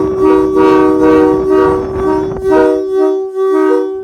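Locomotive air horns, a Leslie RS-3L and a Nathan K3LA, sounding a loud multi-note chord in a series of short blasts, with single notes cutting in and out between blasts. The horns cut off abruptly near the end.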